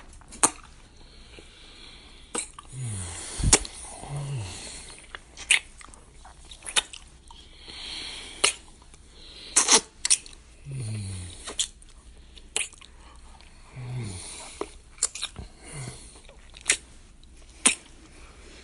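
Kissing sound effect: a dozen or so sharp lip smacks spread irregularly, with breathy noise between some of them and a few short low hums that fall in pitch.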